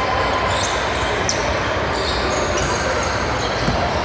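Basketball game: a ball bouncing on the court over a steady background of game noise, with a few brief high-pitched squeaks.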